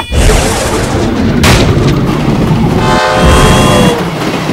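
Designed vehicle-chase sound effects: a heavy low rumble, a whoosh passing about a second and a half in, then a horn-like blaring tone, falling slightly in pitch, for about a second near the end.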